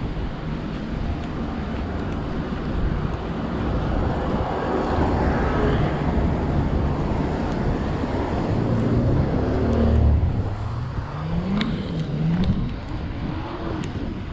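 A car passing on a wet road: tyre hiss and engine noise swell to their loudest about ten seconds in, then fade. Near the end an engine's pitch rises and drops several times as a car accelerates.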